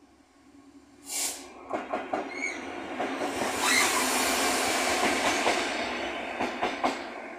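Freightliner Class 66 diesel locomotive, with its EMD two-stroke V12 engine, passing close by. Its noise builds to a loud rush in the middle and fades towards the end, with a short hiss about a second in and a few sharp clicks of wheels over rail joints.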